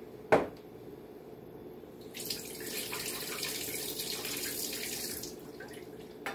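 A single sharp knock just after the start, then a kitchen tap running into the sink for about three seconds before it is shut off.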